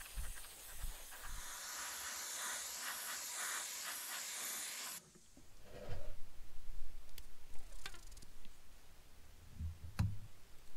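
Airbrush spraying paint with a steady hiss that cuts off about five seconds in. Then gloved hands lay and press thin masking tape onto a small diecast model car body, with light handling rustles and a few soft taps.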